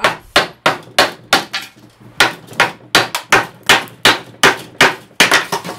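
Hammer tapping repeatedly on the broken rim of a terracotta clay pot, about three sharp strikes a second, chipping more of the pot away.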